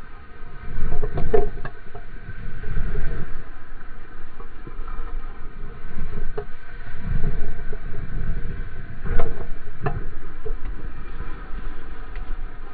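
Water rushing and spraying close by as a surfboard planes across a breaking wave, with low, uneven rumbling water and wind noise. There are a few sharp slaps of water against the board, about a second in and again around nine to ten seconds in.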